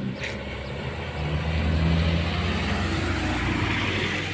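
Heavily loaded dump truck's diesel engine running steadily, its pitch and level rising slightly from about a second and a half in, over road noise.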